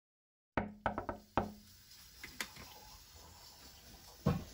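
After a moment of silence, a quick run of about five sharp knocks of kitchenware against a hard kitchen surface, with a faint low hum under them. Then quiet room tone with a few small ticks, and one more solid knock near the end.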